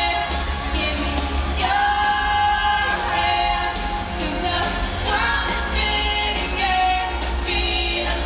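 Live pop song from the audience: a woman singing into a microphone, holding long notes, over keyboard and a heavy, steady bass.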